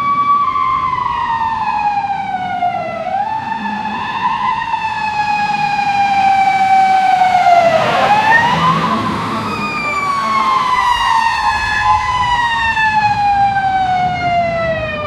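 Fire truck siren wailing: the tone slides slowly down in pitch in three long sweeps, jumping back up quickly between them. It is loudest about halfway through.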